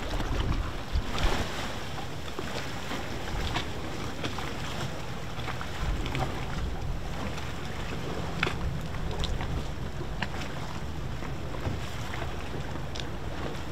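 Strong wind buffeting the microphone over choppy waves around a boat riding at anchor in rough conditions, with a few brief sharp sounds along the way.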